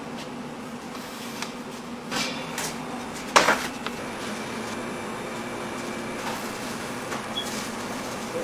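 Steady machine hum of a commercial bakery kitchen, with a few short knocks and clatters, the loudest about three and a half seconds in.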